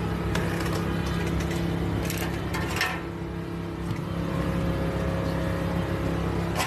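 Power unit of a hydraulic rescue tool running steadily while firefighters work the tool on the crashed car, with a couple of sharp cracks about two to three seconds in.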